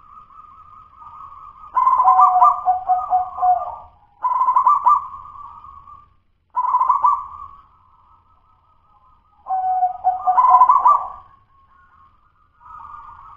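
Zebra dove (perkutut) cooing in four loud phrases of rapid coos, each about two seconds long, with fainter cooing between them. The keeper judges this local bird's song still 'dudut-nutut', not yet the fluent, well-formed 'los' song.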